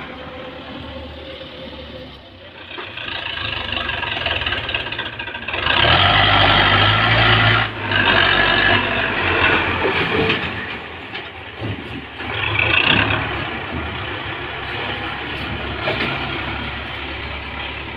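Tractor diesel engine running, swelling louder under load about six seconds in and again around thirteen seconds as the front-loader bucket pushes into mud walls and earth.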